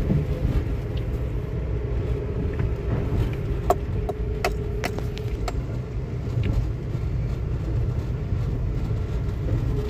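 A car driving, heard from inside the cabin: a steady low rumble of engine and road, with a few short clicks or rattles a few seconds in.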